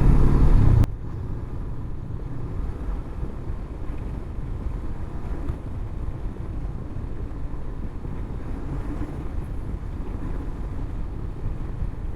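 Honda CB500X parallel-twin motorcycle riding along, a steady engine note for about the first second, then an abrupt drop to a quieter, even low rumble of engine and wind noise.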